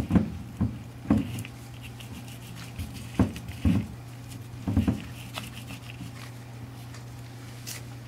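A gloved hand works furnace mortar over a nichrome-wire-wrapped iron heater barrel on a wooden table, making soft, irregular knocks and scuffs, mostly in the first six seconds. A steady low hum runs underneath.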